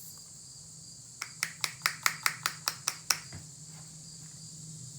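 Crickets chirring steadily, with a quick run of about ten light clicks a little over a second in, about five a second, from the powder being poured from a plastic vial into a muzzleloader's barrel.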